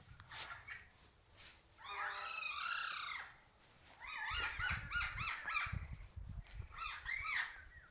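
Animal calls: a long wavering call about two seconds in, then runs of quick rising-and-falling calls, with a low rumble underneath for a couple of seconds in the middle.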